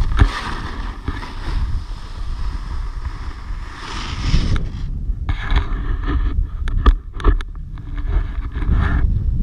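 Wind rumbling on an action camera's microphone over the hiss of a snowboard sliding across snow. About five seconds in the hiss turns choppy, with several sharp knocks.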